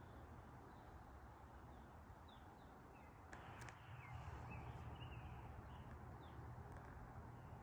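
Quiet outdoor ambience with faint, scattered high chirps from small birds, and a couple of sharp clicks near the middle.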